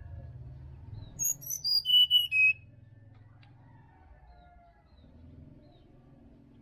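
A songbird calls a fast run of thin, high whistled notes that steps down in pitch, lasting just over a second, about a second in. Quieter bird notes and a faint low hum sit around it.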